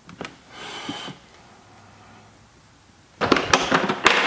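Plastic clicks and clatter of a Milwaukee Packout low-profile organizer being handled and unlatched on a wooden counter, with screws rattling in its bins, starting about three seconds in. A few faint scrapes come near the start.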